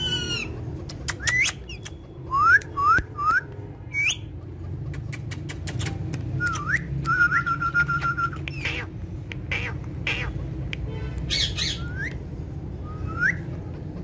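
Pet Indian ringneck and Alexandrine parakeets calling: short rising squawks, three in quick succession a couple of seconds in, a held whistled note around seven seconds, and more squawks near the end, mixed with many sharp clicks.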